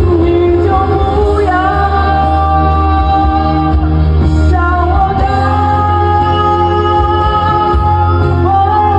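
A man singing a slow Mandarin pop ballad into a microphone over a backing track with a steady bass, holding long notes and sliding up into a new phrase three times.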